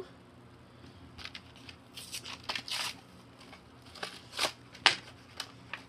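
Plastic blister packaging on a keychain card crinkling and crackling as it is handled: a string of short, scratchy rustles, with one sharper crackle near the end.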